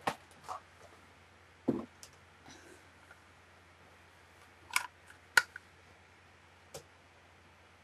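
Eyeshadow palette and brush being handled: a few scattered sharp clicks and taps, the loudest two close together about five seconds in.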